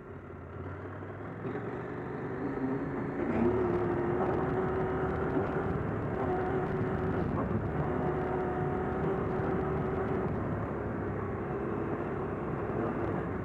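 Husqvarna Norden 901's parallel-twin engine running under way on a dirt track, getting louder over the first three or four seconds as the bike picks up speed, then holding a steady drone.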